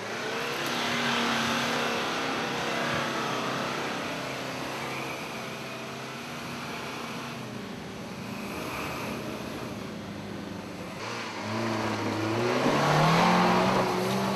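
Engines of off-road 4x4 vehicles working as they climb a steep dirt track, heard across several short clips. Near the end one revs up, its pitch rising, and this is the loudest part.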